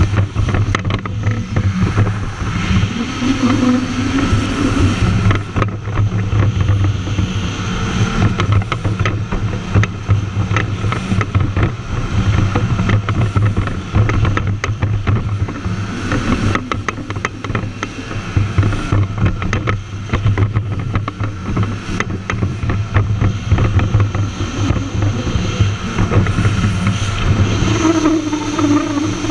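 Stand-up jet ski's engine running at speed through turns, a steady low drone that wavers with the throttle. Water spray hisses and slaps against the hull throughout.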